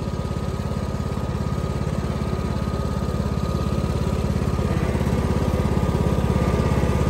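Riding lawn tractor's 22 hp Kohler Courage engine running steadily under load while towing a pop-up camper, the hydrostatic transmission audibly working, with a steady high tone over the engine's fast low pulse. The sound grows slowly louder.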